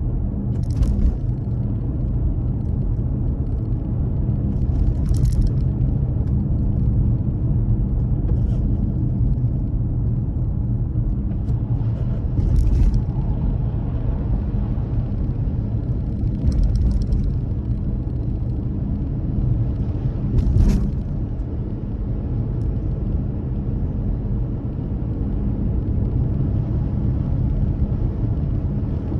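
Car driving along a road, a steady low rumble of engine and tyres, with a short hiss about every four seconds.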